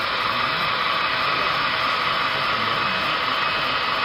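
Steady background din of a busy indoor train show hall: an even hiss-like noise with a faint murmur of distant voices underneath.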